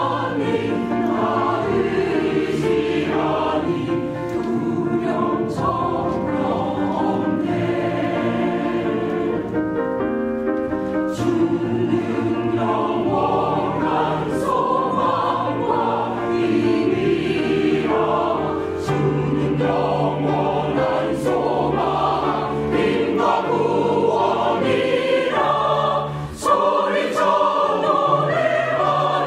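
Mixed church choir of men and women singing a praise anthem in parts, breaking off for a moment near the end before coming back in loud.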